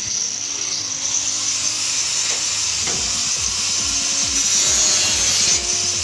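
Angle grinder with a cutting disc running at full speed with a steady high whine, then grinding into the sheet-metal casing of a microwave oven with a harsh rasp, growing louder as it bites.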